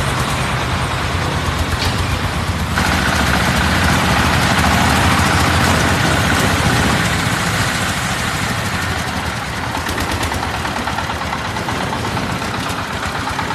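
An engine running steadily with a fast, even chatter. About three seconds in, a rushing noise joins it and the whole sound gets louder.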